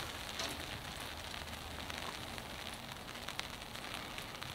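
Faint, steady outdoor background hiss with light scattered crackles.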